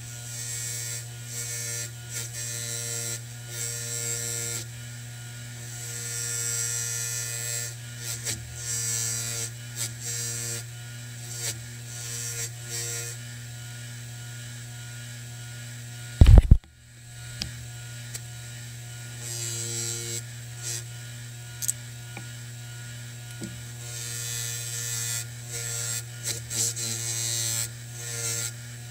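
Bench grinder with a cotton buffing wheel running with a steady hum, while a sword's metal crossguard is pressed against the wheel in repeated passes, each giving a rough rubbing hiss. A single loud thump about halfway through.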